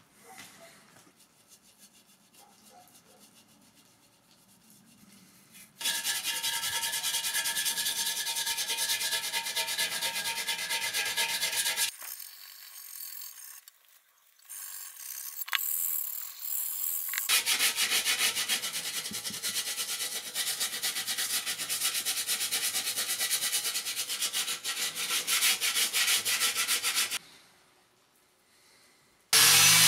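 Metal motorcycle fuel tank being hand-sanded with an abrasive pad: steady rubbing in two long spells with a short break between. Just before the end an angle grinder starts up and runs steadily, louder than the sanding.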